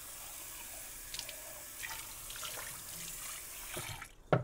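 Water running from a kitchen sink faucet, with a few small clinks from things handled under it. The tap is shut off about four seconds in, followed by a single sharp knock.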